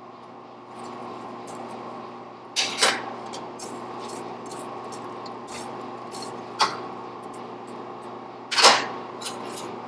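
Steel and blacksmithing tools clanking a few times over a steady fan-like hum: a quick pair of knocks about three seconds in, a single one near seven seconds and a louder, longer one near the end.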